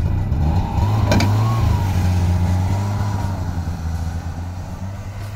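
Lynx 550 snowmobile's two-stroke engine revving up as it pulls away, with a whine that rises and wavers, then fading steadily as it drives off. A sharp click sounds about a second in.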